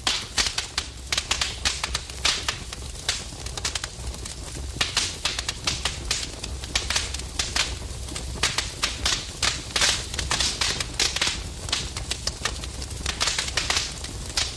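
A blaze burning: dense, irregular crackling and popping over a low, steady rumble.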